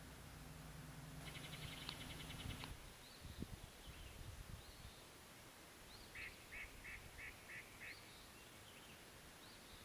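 Faint bird calls: a bird gives a quick series of about six calls, roughly three a second, past the middle, with a few faint, short, high chirps scattered through. A brief rapid ticking is heard about a second in.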